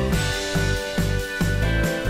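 Background music with a steady rhythmic bass line.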